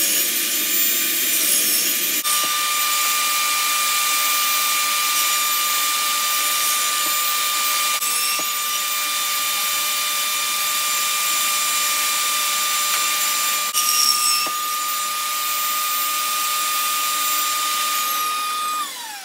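Benchtop table saw running and cutting pine boards, a steady high motor whine with the load shifting as wood passes the blade. Near the end the saw is switched off and winds down, its pitch falling.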